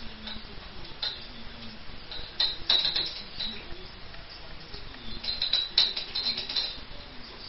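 Mead running from a siphon hose into a glass bottle, with two short spells of crackly gurgling and clicking in the bottle neck, about two and a half and five and a half seconds in.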